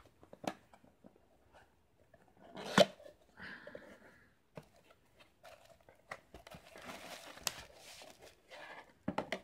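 Handling sounds of a small cardboard box being opened, with a sharp knock about three seconds in, then bubble wrap crinkling as a bubble-wrapped ceramic mug is pulled from its cardboard insert.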